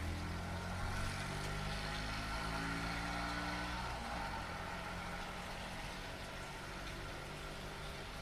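A car passing in heavy rain: the steady hiss of rain with a low engine hum that is strongest for the first four seconds, then fades under the rain.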